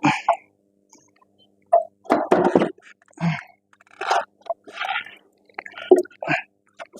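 A run of short, irregular knocks and scrapes as the front rotor and steering knuckle are lifted and worked into line with the new strut.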